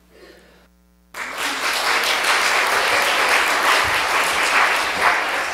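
Audience applauding, breaking out suddenly about a second in and continuing as dense, steady clapping.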